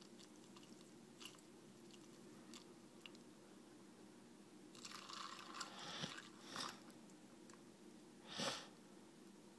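Near silence with a faint steady hum, broken by a few faint crunches and clinks of ice in a glass as coffee is poured over it; the loudest comes near the end.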